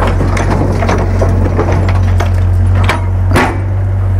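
Doosan mini excavator's diesel engine running steadily while the boom swings down and the bucket is set onto the dirt road, with a string of clanks and knocks from the bucket and arm; the loudest knock comes a little after three seconds in.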